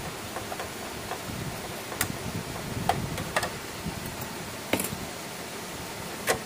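About five light clicks and taps, spaced irregularly, as wires, connectors and a screwdriver are handled on an opened solar inverter's circuit board and metal chassis, over a steady background hiss.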